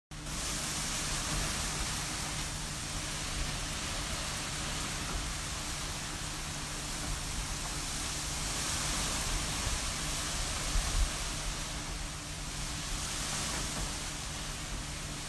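Hurricane wind and rain rushing steadily, with a faint low hum underneath and a brief gust buffeting the microphone about eleven seconds in.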